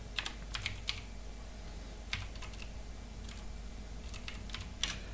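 Computer keyboard keys clicking as a command is typed, in short irregular bursts of a few keystrokes with pauses between.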